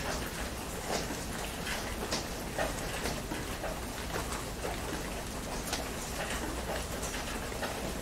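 Heavy rain falling steadily, with irregular sharp taps of drops hitting a surface close by.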